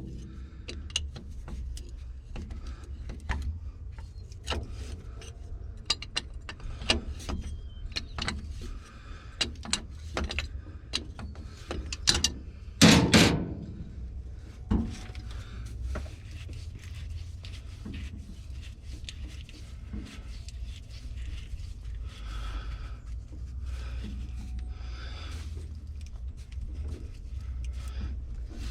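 Hand tools working on an excavator's steel hydraulic hose fittings: wrenches and a cheater pipe clinking, tapping and scraping on metal in scattered knocks, with one louder metal clank about halfway through. A low steady rumble runs underneath.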